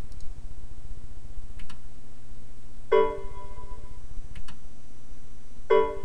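Two identical short chime-like alert tones from the CableEye tester software, played on computer speakers about three seconds apart. Each is a bright pitched chord that rings briefly. The tone signals the test result. A steady low hum runs underneath, with a couple of faint clicks.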